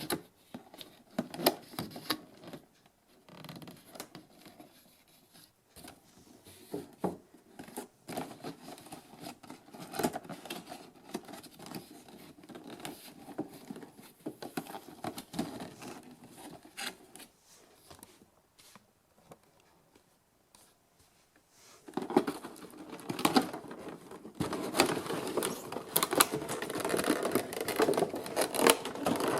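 Hands handling a figure's box and packaging: scattered clicks, scratching and rustling of cardboard and plastic, growing denser and louder from about three quarters of the way through.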